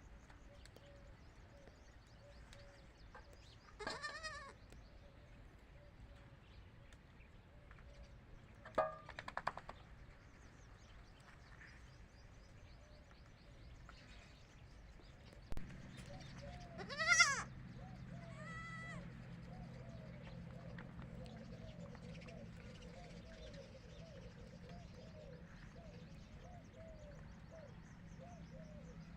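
Goat kids bleating, a handful of separate calls spread out, the loudest just past the middle. A steady low hum comes in about halfway through.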